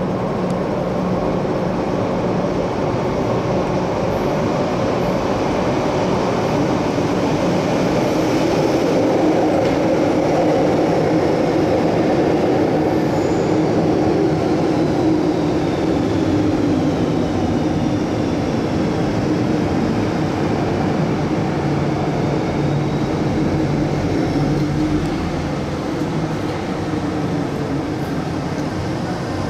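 MTR M-Train electric multiple unit running on the Island Line, a steady rumble of wheels and running gear with faint high whines sliding in pitch; it eases a little near the end.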